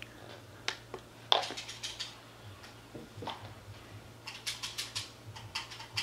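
Faint clicks and taps from handling the video doorbell monitor and pressing its buttons: a few single clicks, then a quick run of light clicks near the end, over a low steady hum.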